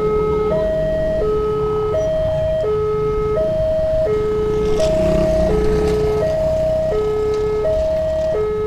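Railroad level-crossing warning alarm sounding its repeating two-tone signal, a high note and a lower note alternating, each held under a second, to warn that a train is approaching. Road traffic and motorcycle engines rumble underneath.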